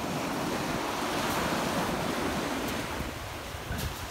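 Surf breaking and washing up a sandy beach, a steady rush that swells and then eases.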